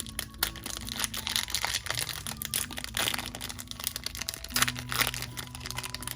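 Pokémon booster pack wrapper crinkling and crackling as the pack and its cards are handled, with dense irregular crackles and a few louder bursts partway through.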